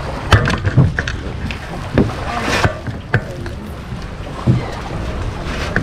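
A tour boat's motor running steadily, with a few sharp knocks and clunks on top.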